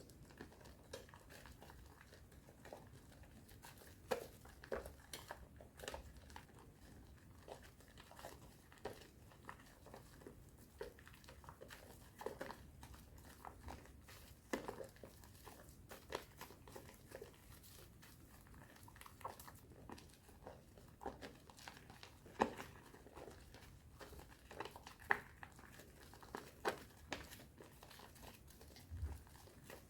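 Thick soap foam mixed with powder being worked by hand on a bar of soap, giving quiet, irregular crackles and soft squishes.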